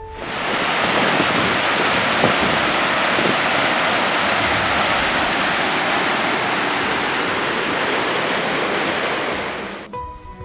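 Loud, steady rush of fast-moving water, like rapids or a waterfall, cutting in abruptly and cutting off abruptly near the end.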